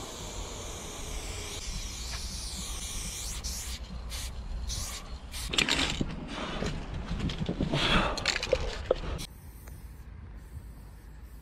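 Aerosol spray paint can hissing as paint goes on, first as a steady spray, then in separate loud bursts with short pauses. It drops to a quieter background near the end.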